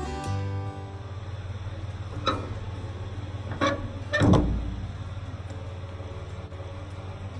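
Suzuki Carry kei truck running with a steady low hum, with three knocks about two, three and a half and four seconds in, the last one loudest with a low thud.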